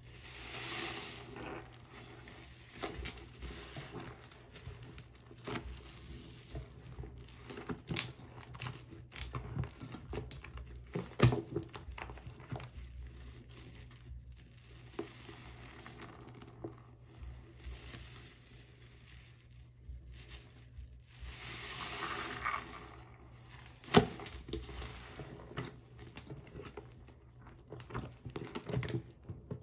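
A wet sponge packed with Comet cleanser powder being squeezed and scrubbed by hand in a sink of foamy water, with many short sharp clicks and a few longer swells of wet noise as the lather is worked.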